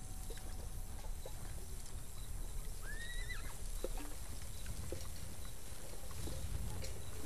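Horses moving, with scattered hoof knocks and a single short whinny about three seconds in, over a steady low rumble.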